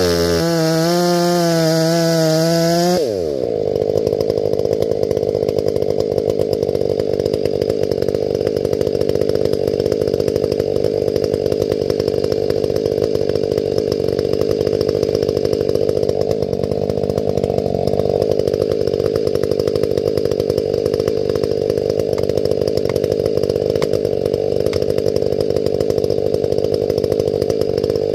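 Stihl 500i two-stroke chainsaw cutting into a standing tamarack. About three seconds in, its high, steady note drops to a lower, rougher pitch as the chain works under load in the cut, and it keeps running steadily through the cut.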